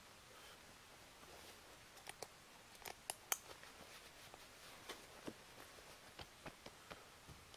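Near silence broken by faint scattered clicks and rustles of a backpack's buckles and straps being fastened and tightened. The sharpest click comes a little over three seconds in.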